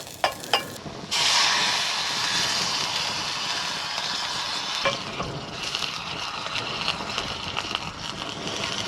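Whiskey hitting a hot pan of butter, onion and black pepper sauce: a few light clicks, then a sudden loud sizzle about a second in that carries on steadily as the whiskey reduces.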